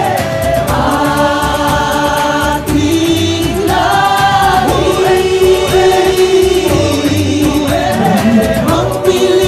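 Music: a song with choir-like singing over a steady beat.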